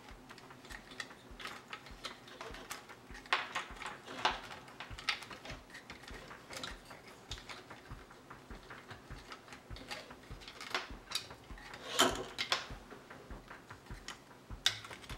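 Irregular small clicks and rustles of hands handling flat ribbon cables and threading them through a 3D printer's frame, with one sharper click about twelve seconds in.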